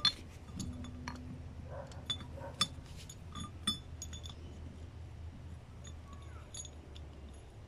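Light metallic clinks and taps of steel bolts and nuts being fitted by hand into the flanges of a steel compression (Dresser) coupling on a galvanized pipe. The clinks are scattered and short, with a few sharper ones in the first four seconds.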